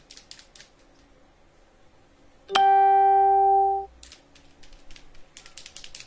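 A single loud, steady pitched tone starts sharply about two and a half seconds in, holds for just over a second and stops abruptly. Faint light taps of a paintbrush on canvas come before and after it.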